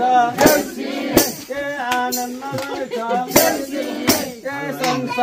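Group of voices singing a Deusi song, the call-and-response chant of Tihar, with sharp percussive hits every second or so.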